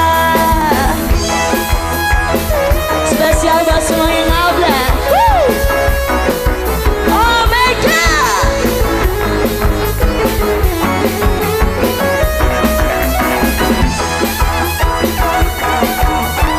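Dangdut band playing live: an instrumental break with a steady driving beat under a lead melody whose notes slide up and down.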